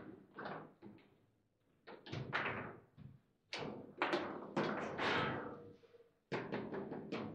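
Table football in play: sharp knocks and clacks of the ball being struck by the plastic players and of the rods banging against the table, coming in quick clusters with the busiest run of hits in the middle.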